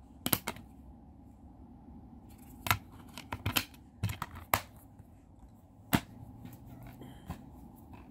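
Plastic DVD cases being handled: about nine short, sharp clicks and taps scattered through a few seconds.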